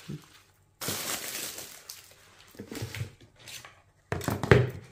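Crinkling of plastic wrapping and rustling of leafy greens as they are handled. About four seconds in comes a short, loud knock and clatter as a cutting board and knife are set down on the table.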